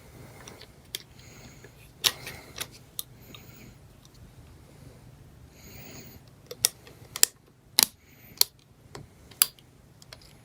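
Sharp clicks and taps of hard exercise-machine parts being handled and fitted, with short rustles between. There is one click about two seconds in and a run of about half a dozen in the second half.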